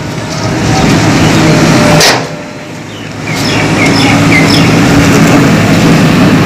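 A heavy vehicle's engine running steadily. There is a sharp noisy burst about two seconds in, and the sound drops for a moment before the rumble comes back.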